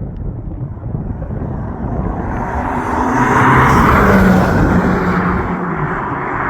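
BMW X5 M's twin-turbo V8 with an aftermarket titanium valved exhaust, running on the road: a steady low rumble that swells louder in the middle, as under a pull, then eases back.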